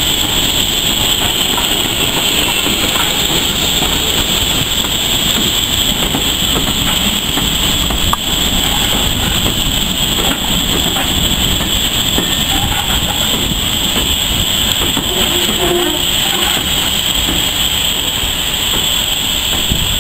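A train of coaches moving past on the adjacent track, its wheels clattering over the rail joints, over a steady hiss of steam from a standing steam locomotive.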